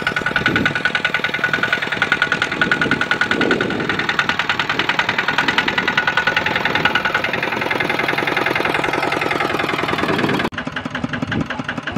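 Single-cylinder diesel engine of a two-wheel walking tractor chugging steadily as it pulls a loaded trailer. About a second and a half before the end the sound drops suddenly to a quieter, still pulsing engine note.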